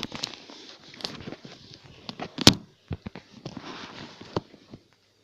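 Irregular clicks and knocks of things being handled on a table, the loudest a sharp knock about two and a half seconds in, dying away shortly before the end.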